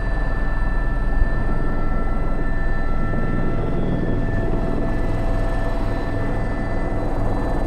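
Airbus H125 helicopter in flight: the single turboshaft engine's steady whine over the low beat of the main rotor.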